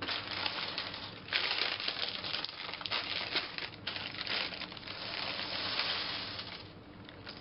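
A clear plastic bag crinkling as loose Mega Bloks plastic bricks are shaken out of it onto a pile, the small pieces clattering against each other; it dies down near the end.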